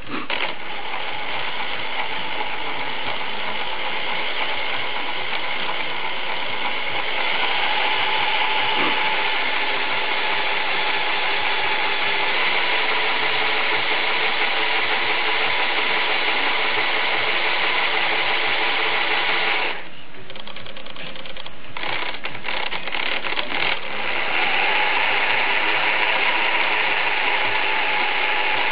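The brushless electric motor and four-wheel-drive gear train of a 1:16 RC truck whirring steadily, its wheels spinning free off the ground as the motor is run in without load. The whirr rises a few seconds in, falls away and stutters about two-thirds through as the throttle is eased, then picks up again.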